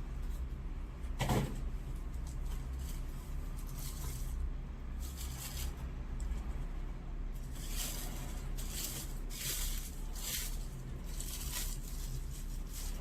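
Intermittent handling noises: short rustles and scrapes of packaging being handled, with one sharper, louder one about a second in and a cluster of them in the second half, over a steady low hum.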